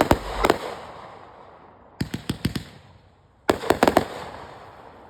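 Consumer firework cake going off: three volleys of several rapid sharp bangs, about a second and a half apart, each trailing off in a fading echo.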